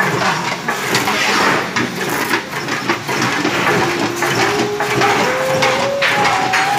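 Steel sheet being curved round the roller of a bending machine to form a tandoor body: continuous metallic scraping, creaking and knocking. From about four seconds in, a few held notes climb step by step in pitch over it.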